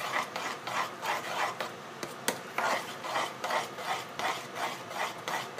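Spoon scraping and stirring thick, sweetened mung bean paste against the sides and bottom of an aluminium pot in rhythmic strokes, about three a second, as the paste is cooked down to a dry, stiff filling. A sharper click comes about two seconds in.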